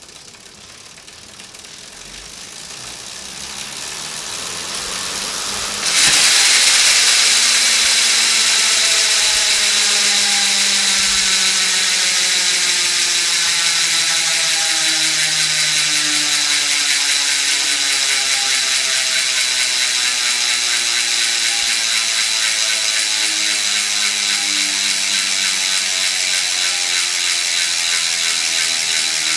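Koozer XM470 rear hub's 28-tooth ratchet freehub buzzing as it freewheels, a rapid run of clicks. The sound builds over the first few seconds, jumps suddenly louder about six seconds in, then the click rate slowly falls as the wheel spins down.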